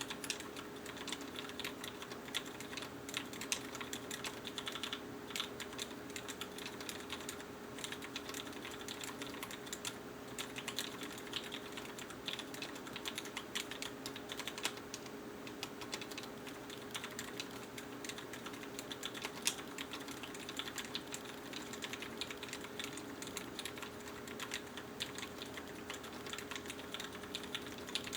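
Continuous typing on a compact mechanical keyboard with vintage Cherry MX Black linear switches, lubed and fitted with 65 g springs: a dense, unbroken stream of keystroke clacks.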